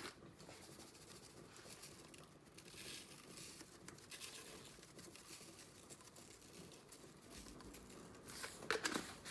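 Faint rustling and crinkling, with a few short sharp clicks near the end.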